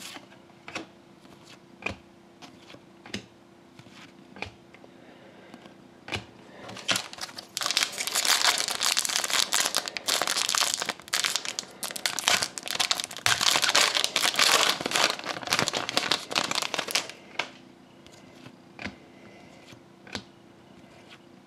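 Wrapper of a hockey trading card pack being torn open and crinkled by hand, loud for about ten seconds in the middle. Before and after it come scattered light clicks of cards being flicked through one by one.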